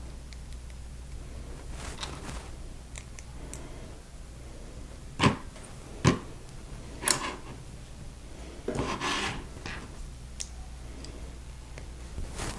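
Plastic Lego bricks being handled and pressed together: three sharp clicks a second or so apart, about halfway through, then a brief rustle of pieces being sorted.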